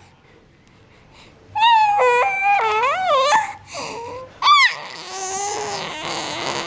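Infant vocalizing happily: high, sing-song coos and squeals that swoop up and down, starting about a second and a half in. There is a short rising squeal about four and a half seconds in, then a breathier drawn-out sound near the end.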